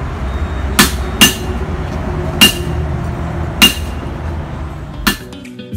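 Five sharp metal-on-hard knocks at uneven intervals of about a second, each a short ringing clink. They fit a mason's trowel being tapped against the mortar bucket, over a steady low background rumble.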